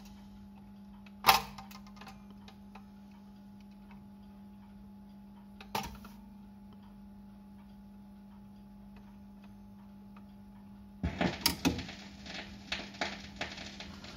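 Automatic record changer of a Siemens radiogram cycling over a steady mains hum. There is a sharp clack about a second in as the next record drops onto the platter, a softer clunk midway and light mechanism ticks. Near the end the tonearm sets down and the stylus crackles and clicks in the record's lead-in groove.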